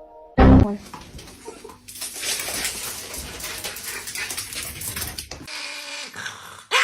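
A loud thump about half a second in, then a dog whimpering over a crackling, rustling background.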